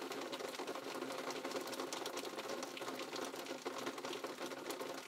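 Rain pattering steadily: a faint, dense crackle of fine drops.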